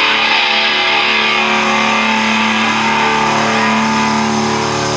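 Electric guitar holding a sustained chord through an amplifier, ringing steadily with a wash of noise under it.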